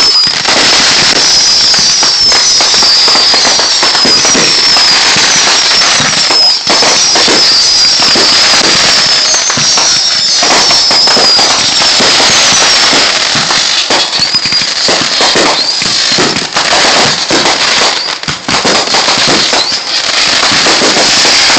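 Consumer fireworks going off continuously with dense crackling and popping. Over the first half a high whistle falling in pitch repeats about once a second; sharper pops and bangs come more often later.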